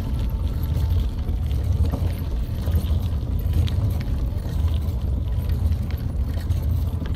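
Bicycle ride over cracked asphalt: a steady low rumble of wind on the microphone and tyres rolling on the rough surface, with a few faint clicks and rattles.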